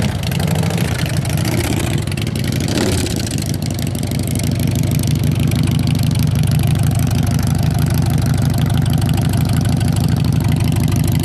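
Harley-Davidson V-twin motorcycle engine running as the bike is ridden slowly, with a short rev about two to three seconds in, then settling into a steady idle.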